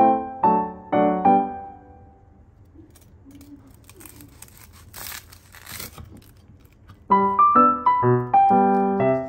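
Soft piano background music stops about two seconds in and comes back about seven seconds in. In the gap, a knife saws through a toasted bread sandwich with a crunchy, rasping sound lasting about two seconds.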